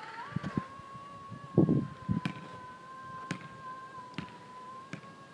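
A ball thuds onto asphalt about a second and a half in, then bounces with sharp knocks about once a second. A steady high-pitched whine sounds under it all.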